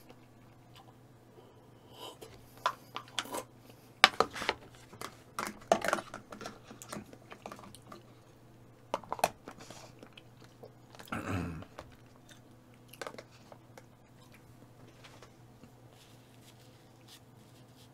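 Close-miked chewing and crunching of food, a run of bites and crackly crunches in the first half. After that it tails off to a few small mouth clicks.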